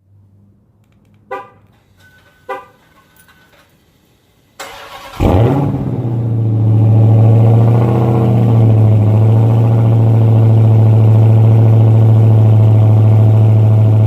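Two short horn chirps, then about four and a half seconds in the starter of a 2017 Dodge Charger SRT Hellcat's supercharged 6.2-litre Hemi V8 cranks. The engine fires with a quick rev and settles into a loud, steady idle.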